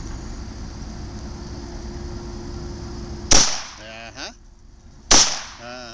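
.22 rimfire pistol fired twice, about three seconds in and again about two seconds later, each shot a sharp crack with a short echo.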